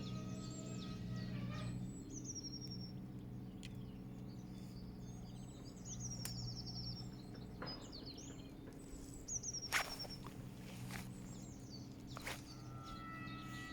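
Small birds chirping in short, repeated, falling trills over a steady low hum, with a few sharp clicks about ten and twelve seconds in. A sustained ringing tone fades out about two seconds in and comes back near the end.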